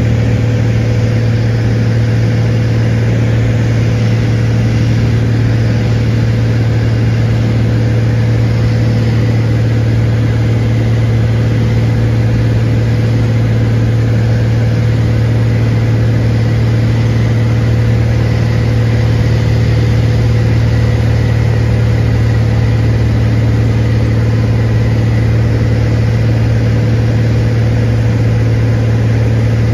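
Cessna 182 Skylane's piston engine and propeller running at a steady cruise, heard from inside the cabin as an unchanging deep drone with a fainter higher hum over a rush of noise.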